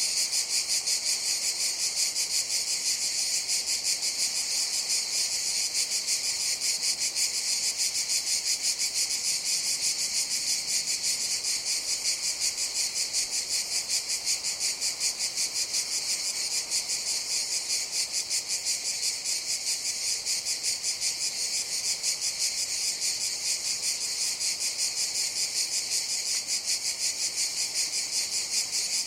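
Cicadas singing in a steady, high-pitched chorus that pulses rapidly without a break.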